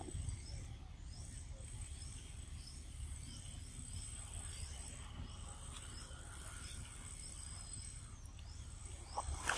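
Outdoor ambience: a low rumble under a steady high whine, with a short high chirp repeated about twice a second. Near the end comes a sharp crunch, from the macaques gnawing corn cobs and mango.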